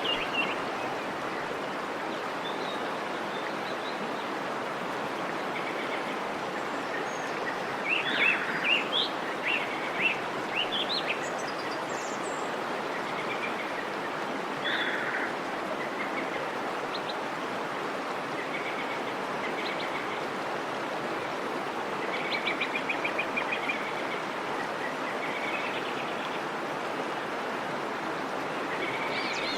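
Steady rushing of a stream with small birds chirping over it in short bursts, the liveliest about a third of the way in and again past two-thirds.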